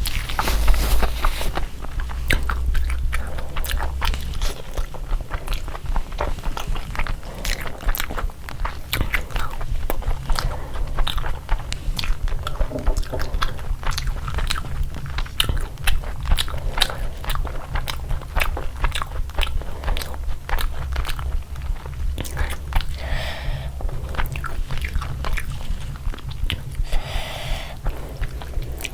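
Close-miked eating: steady chewing and biting, with many sharp crunching clicks of crisp food being bitten.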